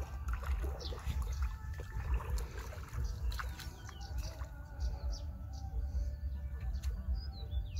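Shallow muddy water sloshing as a bamboo-framed push net is shoved along a canal bed, over a steady low rumble.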